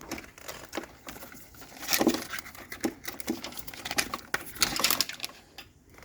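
Old low-voltage sensor wire being pulled out and handled: irregular rustling and scraping with small clicks, busiest about two seconds in and again near the end.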